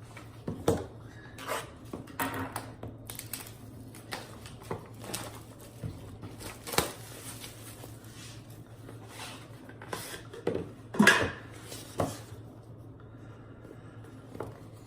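Irregular clicks, taps and light clatter of trading-card packaging being handled: small boxes and hard plastic card cases picked up and set down, with a louder knock about eleven seconds in.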